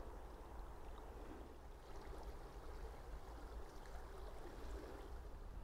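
Water flowing along a narrow irrigation canal: a faint, steady rushing.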